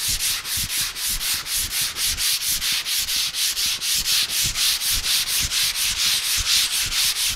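Hand block sanding of a primed car fender with 80-grit sandpaper on a small sanding block: brisk back-and-forth scraping strokes, about five a second. The paper is taking off the guide coat and the high spots of the primer to flatten the panel.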